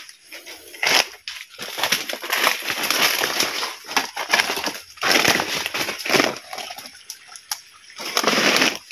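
Footsteps crunching on dry leaf litter and brushing through leafy undergrowth, in irregular bursts.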